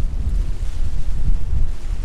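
Wind buffeting the camera's microphone: an uneven low rumble that rises and falls in gusts.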